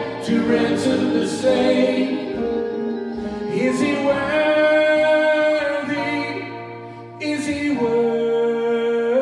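Worship band singing a slow congregational song: male and female voices in harmony, holding long sung lines over quiet guitar accompaniment.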